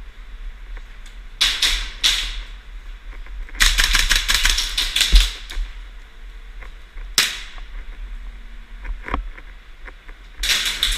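Airsoft guns firing: a couple of shots, then a rapid burst of automatic fire lasting about two seconds, then single shots and another short volley near the end.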